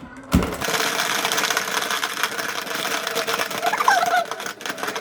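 Rapid plastic clacking of a frog candy-eating board game, its frogs pressed down over and over to snap up the candies.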